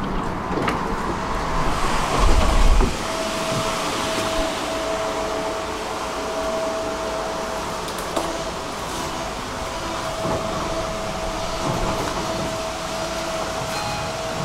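Steady running noise of an electric tram heard from on board: a rushing hum with a constant mid-pitched electrical tone over it, and a couple of faint clicks.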